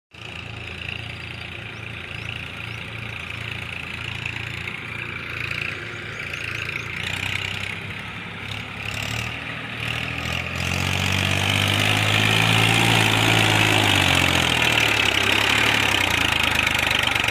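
Tractor diesel engine running while it tows a trolley loaded with sand. It grows louder about ten seconds in as the tractor nears, and its revs rise and fall under the load.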